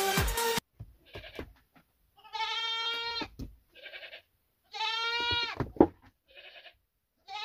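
Goats bleating: two long, wavering bleats, each followed by a shorter, fainter call, with a sharp knock at the end of the second bleat.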